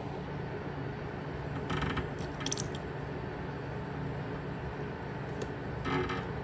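Coolant hose being squeezed by hand to bleed the cooling system of a Polaris 800 two-stroke snowmobile engine, with short hissing sputters of trapped air escaping from the loosened bleed screw about two seconds in and again near the end, over a steady low hum.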